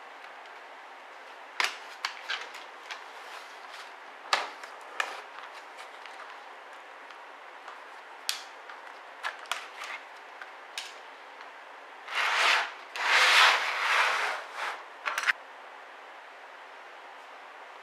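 Hands working on a ThinkPad R61 laptop to take out its hard drive: scattered sharp plastic clicks and taps, then a scraping rub lasting about three seconds, about twelve seconds in, as the drive is slid out of its bay, ending in a click.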